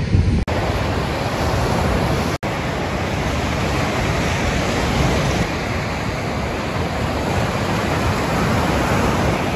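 Ocean surf breaking and washing up a sandy beach, mixed with wind on the microphone, a steady rushing noise. It cuts out for an instant about half a second in and again about two and a half seconds in.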